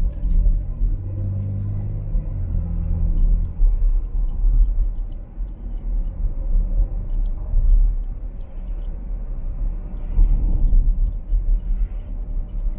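Low rumble of a car driving, heard from inside the cabin: engine and road noise, with a steadier engine hum in the first few seconds.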